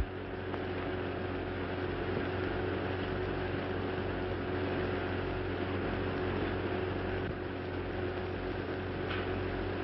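Steady hiss and low hum of an old optical film soundtrack, with a single sharp click right at the start.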